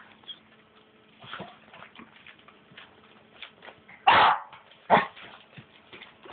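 Jack Russell–Chihuahua cross puppy barking twice, a short loud bark about four seconds in and a second one under a second later, between faint scattered rustles and clicks as it tears at a newspaper.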